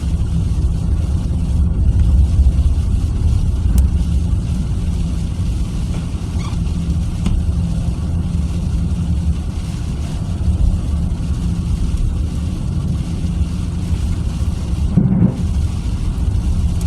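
Car driving steadily on a snow-covered road, heard from inside the cabin: a low engine drone and tyre and road rumble.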